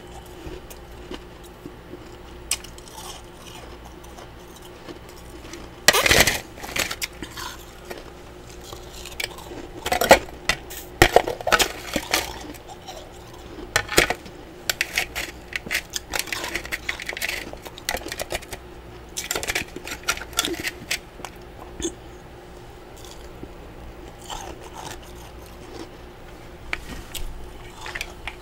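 Close-up crunching and chewing of mouthfuls of freezer frost, with a spoon clicking and scraping in the bowl. The crunches come in irregular clusters from about six seconds in to about twenty seconds, then sparser, over a faint steady hum.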